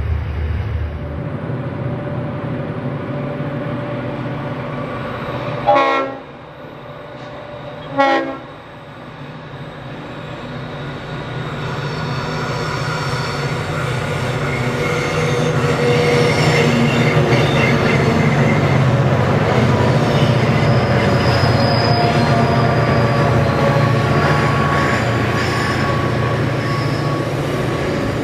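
Freight train rolling past, then two short train horn blasts about six and eight seconds in. After that a streamliner diesel locomotive hauling freight up the grade grows steadily louder as it approaches and runs past under load.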